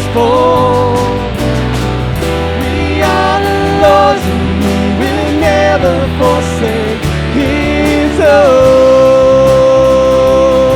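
Worship band playing the song with a singer over it, ending in a long held sung note.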